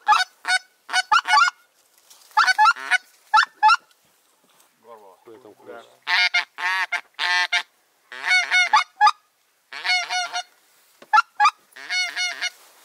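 Goose honking in quick runs of loud, close honks that break upward in pitch. About four to six seconds in there is a pause filled only by fainter, lower calling.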